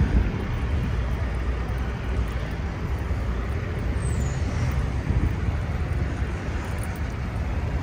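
Steady street traffic noise: cars and buses running past, a dense rumble heaviest in the low end.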